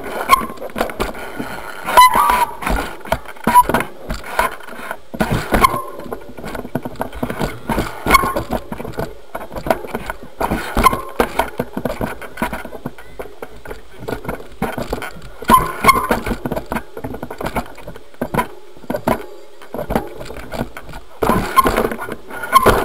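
Knocks, clunks and rattles from a bike's fork and frame, heard through a camera strapped to the front fork leg as the bike rolls and bumps over grass. Heavier clusters of knocks come every two or three seconds.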